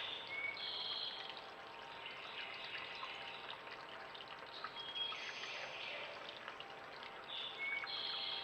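Mountain creek flowing steadily over rocks, with a songbird singing short phrases every few seconds.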